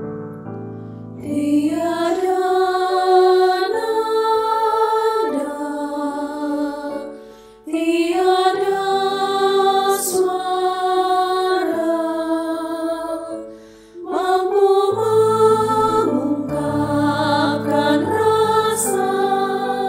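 A women's choir singing a slow hymn in Indonesian. A piano plays for about the first second, then the voices come in and sing three phrases, each with a short breath gap between.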